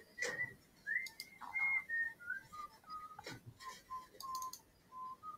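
A person whistling a short tune: about a dozen short clear notes that step down in pitch, with a few sharp clicks in between.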